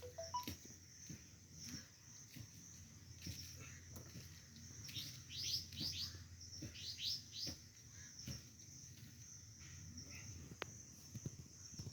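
Faint bird chirps: a quick run of short falling chirps in the middle, over a steady high-pitched drone, with scattered light clicks.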